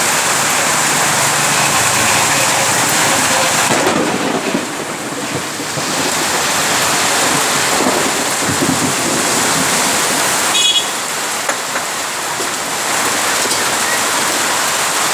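Heavy rain pouring steadily, with a low rumble partway through and a brief sharp click about eleven seconds in.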